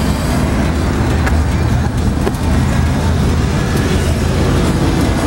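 Harley-Davidson Screamin' Eagle 110 air-cooled V-twin idling steadily with a loping beat.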